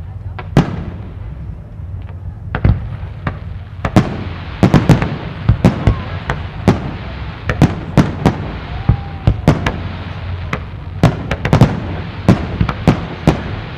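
Fireworks display with aerial shells bursting in sharp, irregular bangs, a few at first, then a rapid string of reports from about four seconds in.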